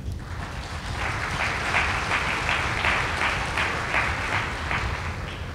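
Audience applauding, the clapping building about a second in and dying away near the end.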